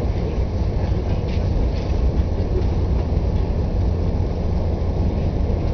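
Via Rail passenger train under way, heard from inside the coach: a steady low rumble of the car running on the track.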